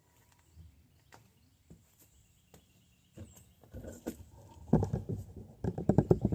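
Bicycle parts being handled and knocked together: a few faint clicks, then rapid irregular clattering and knocking that grows loud from about halfway through.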